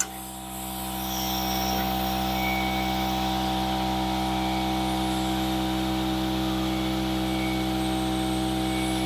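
Hydraulic car lift lowering a car: a steady mechanical hum with a hiss above it, building up over the first second and then holding even.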